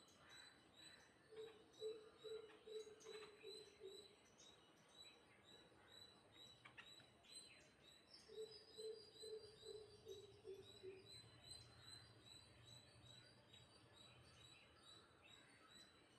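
A bird calling: two runs of about eight short, low notes each, a few seconds apart, each run dropping slightly in pitch.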